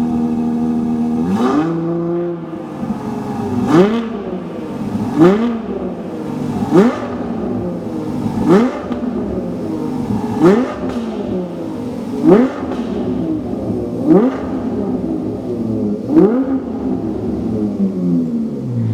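Ferrari 812 Competizione's naturally aspirated V12 on its standard factory exhaust, idling and then blipped to high revs about nine times in quick succession, each rev rising sharply and falling back, before it settles back to idle near the end.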